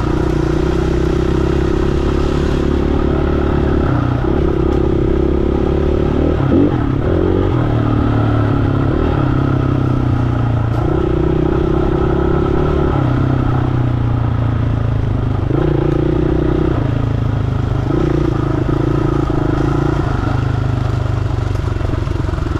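KTM 500 single-cylinder four-stroke dirt bike engine running under way, its note stepping up and down every second or two as the throttle is rolled on and off. A brief knock about six seconds in.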